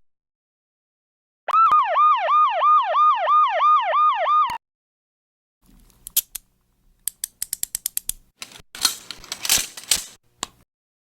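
A yelping siren sound effect, its pitch swooping up and down about two and a half times a second for some three seconds and cutting off suddenly. After a pause comes a run of sharp clicks and taps.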